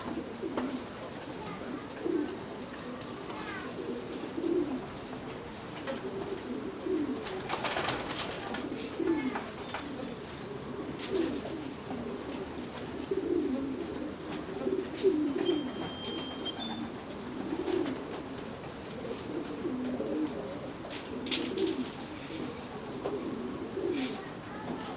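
Racing pigeons cooing continuously in their loft, many low throaty coos overlapping. A few sharp clicks and one short high beep, lasting about a second, come through about two-thirds of the way in.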